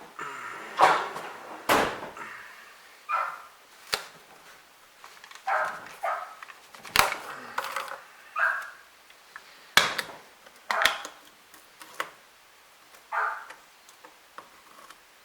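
A dog barking and yipping in short bursts every second or two, mixed with sharp clicks and knocks from handling things.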